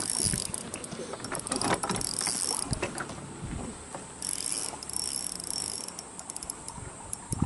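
Spinning reel worked in short spells, its gears whirring and clicking, with scattered sharp ticks, while the line is under load from what may be a hooked bass or a snag on standing timber.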